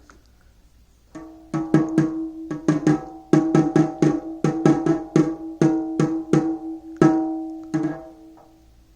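A drum beaten about two dozen times in an uneven rhythm, starting about a second in and stopping near the end. Each stroke rings on with a steady pitch.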